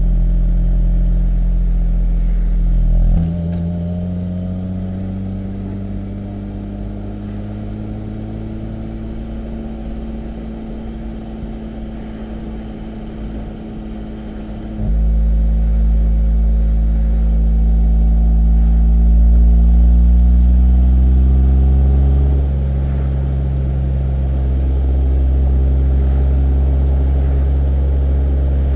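2020 Porsche 718 Spyder's 4.0-litre flat-six running loud through its sports exhaust while driving. It goes quieter about three seconds in, then jumps back louder and deeper about halfway through as the engine comes back on load, with another change in note near the last third.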